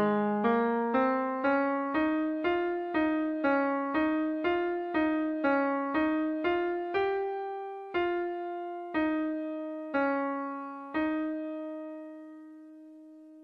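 A piano sound on a keyboard plays a single melody line note by note: the top tenor part of a choral song, played as a rehearsal track. The notes come about two a second, then slow to one a second. The last note is held and dies away.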